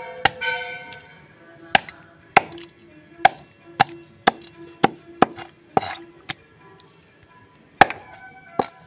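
Large knife chopping through a whole tilapia onto a wooden board: about a dozen sharp chops, unevenly spaced at one or two a second.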